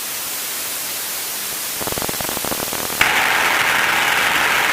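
Light aircraft engine and propeller noise heard through the headset intercom as a steady hiss, jumping suddenly louder about three seconds in as the throttle goes to full power for a short-field takeoff.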